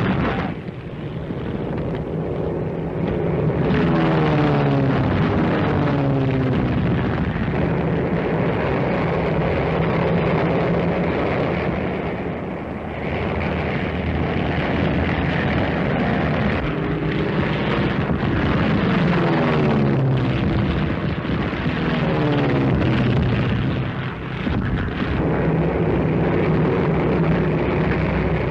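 Propeller biplane engines droning steadily over a rough noise. Several times the engine pitch glides down as a plane passes or dives by.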